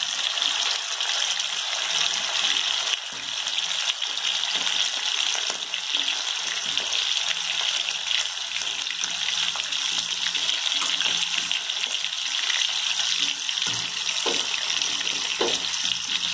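Chicken drumstick deep-frying in hot oil in an iron kadai: a steady sizzling hiss of the oil bubbling around the meat.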